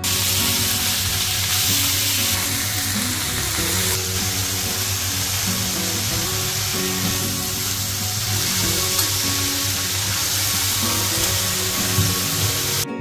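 Shredded cabbage and potatoes sizzling steadily in hot oil in a wok while being stirred with a spatula, over soft background music.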